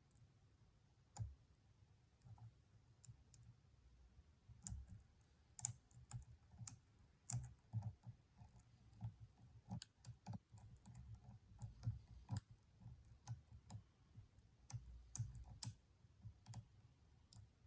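Faint, irregular metallic clicks and light handling knocks of a lock pick and tension wrench working the pins inside a Stanley padlock challenge lock. The lock is resisting being picked.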